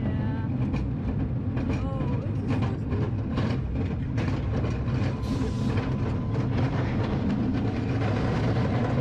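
A roller coaster train running on its steel track: a steady low rumble with rapid clattering and clicks, and brief voices of riders.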